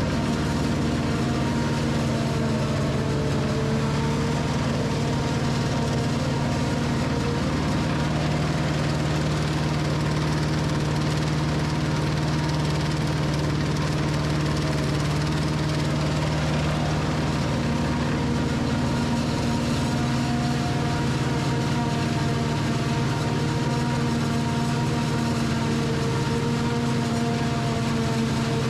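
Forage harvester running steadily under load while chopping corn, a constant engine and machinery drone with a few fixed tones and no change in speed.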